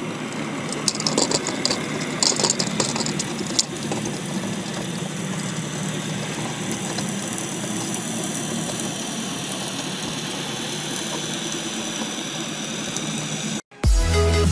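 A steady engine hum, with bursts of clattering about one and two seconds in. Near the end it cuts off suddenly and loud electronic music with a heavy beat starts.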